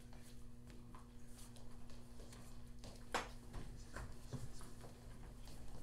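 Low room sounds of people moving about on a hard floor: faint footsteps, shuffling and scattered light knocks over a steady electrical hum, with one brief louder noise about three seconds in.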